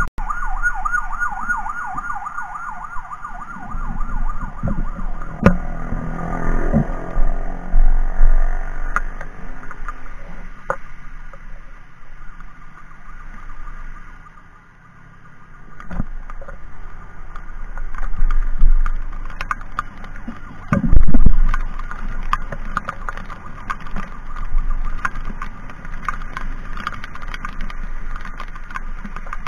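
Emergency siren sounding in a fast warble, settling after a few seconds into a steadier tone, heard while riding a motorcycle in traffic. Wind rumbles on the microphone throughout, with two loud gusts.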